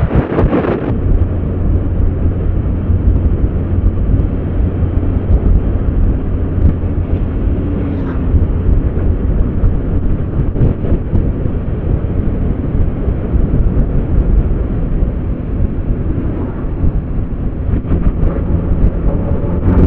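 Kawasaki Z900RS inline-four running at steady road speed, heard under a heavy, steady wind rumble buffeting the microphone.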